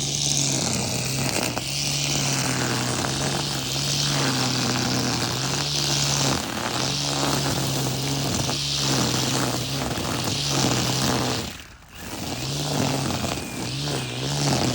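Battery-powered brush cutter running at full speed and cutting grass: a steady motor hum under the hiss of the spinning head through the grass. The motor is briefly let off about 12 seconds in, then comes back up.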